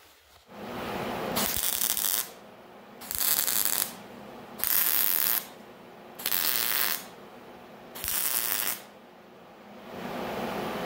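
MIG welder laying short tack welds on a steel hood panel: five brief bursts of welding arc, each under a second, about one every one and a half seconds. A steadier, quieter noise starts near the end.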